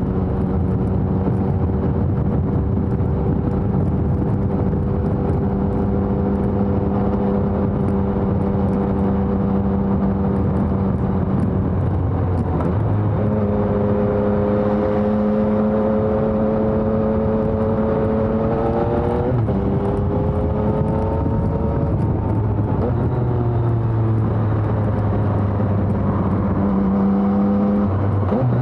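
2020 Yamaha XSR 900's 847 cc inline-three engine through a LeoVince Evo One full exhaust system, under way. It holds steady revs for about twelve seconds, then drops in pitch and settles again, and in the last third the revs rise and fall several times as the throttle and gears change.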